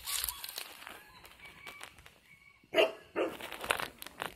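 One short, loud animal call nearly three seconds in, followed by a couple of shorter, fainter calls.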